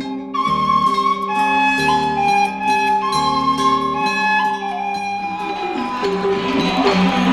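Music: a flute plays a slow melody of held notes over plucked-string accompaniment. From about five seconds in, the sound grows fuller and busier.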